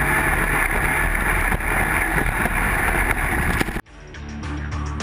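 Racing jet ski engine running hard over water with wind rushing on the microphone, then cut off abruptly near the end.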